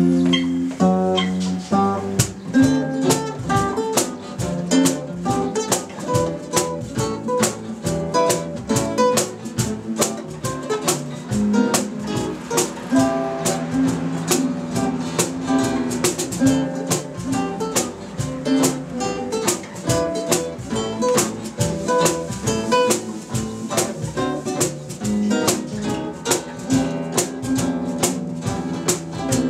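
A live instrumental trio of two guitars, an archtop and a cutaway acoustic-electric, with a violin-shaped electric bass, playing a tune. There are busy plucked guitar notes over a bass line throughout.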